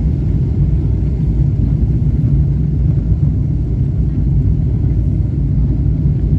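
Steady low rumble inside a Boeing 777-300ER's cabin on approach: the twin GE90 engines and airflow over the fuselage, heard from a rear economy seat.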